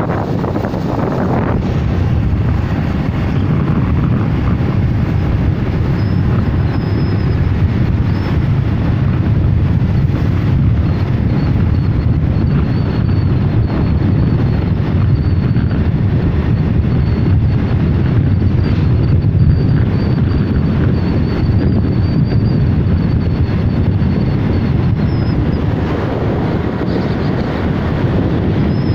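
Steady rumble of a moving road vehicle, engine and tyre noise, with wind buffeting the microphone.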